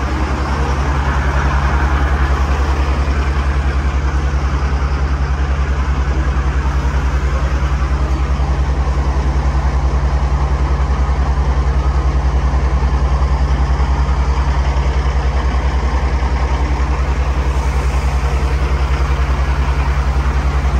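Semi truck's diesel engine idling steadily, a low even drone.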